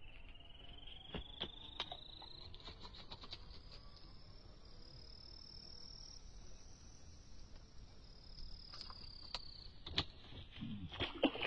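A high, insect-like buzzing drone that slowly rises in pitch and then falls again, with a few sharp clicks and knocks, the loudest near the end.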